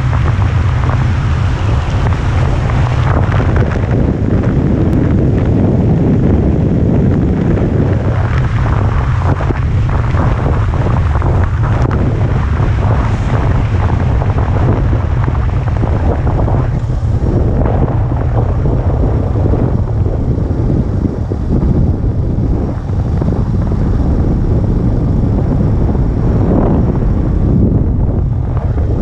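Heavy wind noise buffeting the microphone of a moving motorcycle, with the motorcycle's engine running steadily underneath.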